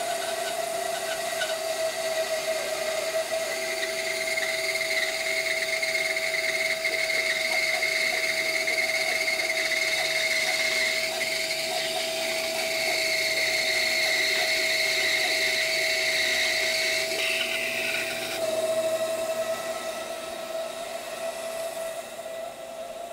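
Small benchtop bandsaw running with its blade cutting through a laminated hardwood blank, a steady whine over the sawing noise. Its note changes and drops a little in level about eighteen seconds in.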